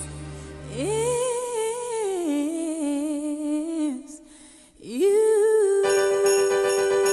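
Recorded Christmas pop song: a singer holds long, wavering sung notes that glide up and fall away over a soft backing, with a brief drop about four seconds in. Near the end the full band comes in under one long held note.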